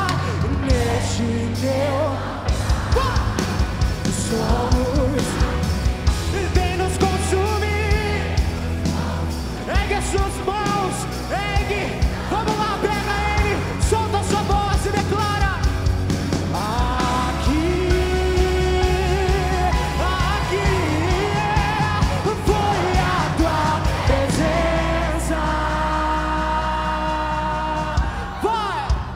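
A live worship band playing a song, with a singer's voice carrying the melody over a steady bass line.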